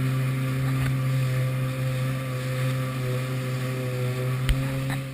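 Kawasaki Ultra jet ski engine running at a steady pitch under constant throttle, with one sharp knock about four and a half seconds in.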